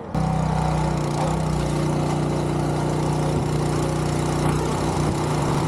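Boat engine running steadily at a constant pitch, a low even hum with no change in speed.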